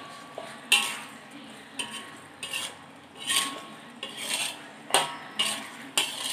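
A metal spoon scraping and clinking against a wok while stirring thick sambal, in about eight irregular strokes.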